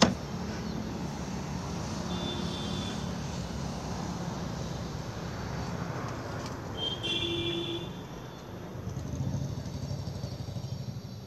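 Steady drone and hiss of a car being washed, heard from inside the cabin, with a knock at the very start and two short high squeaks, about two and seven seconds in.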